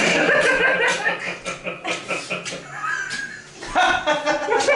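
Audience laughing after a punchline, many voices at once, swelling again near the end.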